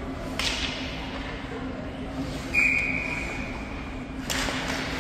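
Ice rink ambience during a stoppage in play: a constant low hum, a sharp knock about half a second in, and one steady high tone held for about a second and a half just past the middle.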